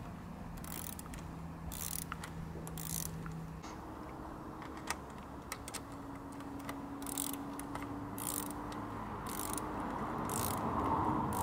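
Ratchet spanner with a socket clicking in short bursts, again and again, as it tightens the nuts holding mudguard stays to a bicycle's rear axle plate, over a faint steady hum.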